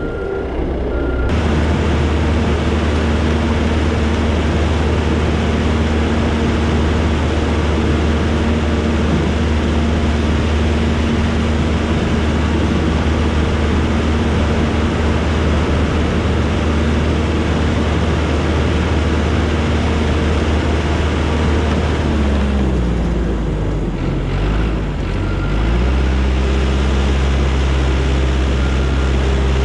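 Diesel engine of heavy snow-clearing equipment running steadily at high throttle under load. About three quarters of the way through, its pitch sags and then picks back up.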